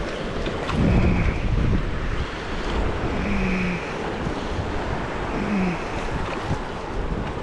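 Rushing river water, a steady dense rush, with wind buffeting the microphone.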